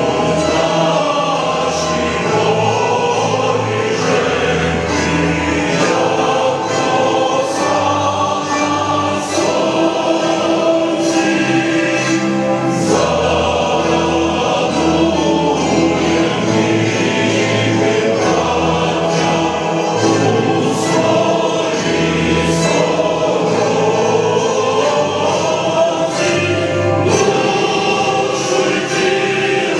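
A choir singing, with full held chords and clearly sung words.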